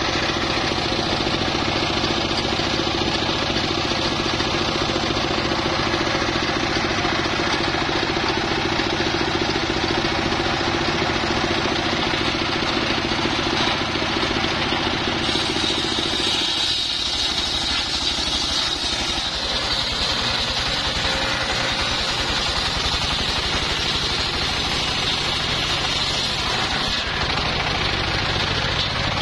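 Homemade bench circular saw driven by a stationary engine, running steadily. About halfway the sound changes as the big blade bites into a log and saws through it, adding a higher whine over the engine.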